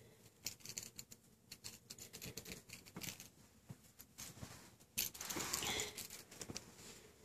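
Soft scattered clicks, taps and rustles of a kitten playing with a small plastic ball toy on carpet, mixed with handling noise; a louder scuffling rustle comes about five seconds in.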